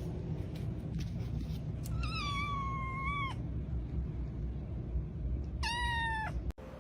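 A cat meowing twice: a long, drawn-out meow that slides down a little and then holds, and a few seconds later a shorter one, over a steady low background rumble.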